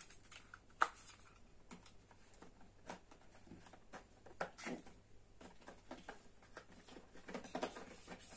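Hands handling small packaging and cardboard calendar boxes: scattered light clicks and rustles, the sharpest click about a second in.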